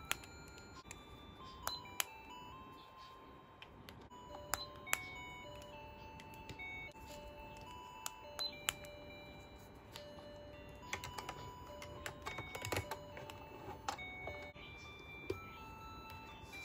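Simple electronic melody of single held notes stepping up and down, with sharp plastic clicks and taps from small toy pieces being handled, busiest about eleven to thirteen seconds in.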